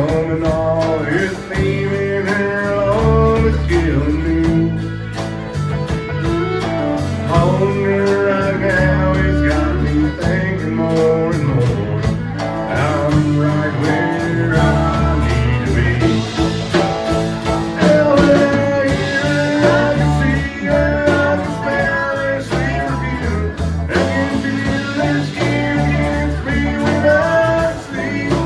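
Live country band playing a song with fiddle, acoustic and electric guitars and drums, with singing.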